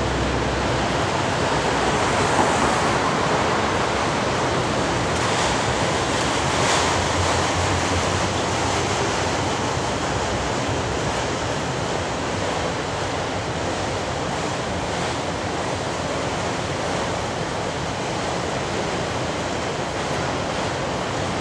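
Freight train of enclosed autorack cars rolling past: a steady rushing noise of steel wheels on rail, with an occasional faint click.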